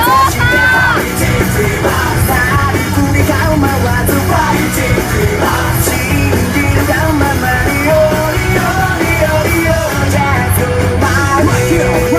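Loud rock music with yelled, shouted vocals over a steady bass line.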